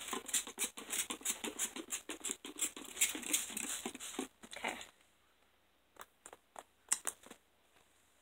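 Sticky homemade slime and hand lotion squelching and crackling under hands as lotion is pumped on and worked in to cure the slime's stickiness: a dense run of quick wet clicks and pops for about five seconds, then only a few scattered pops.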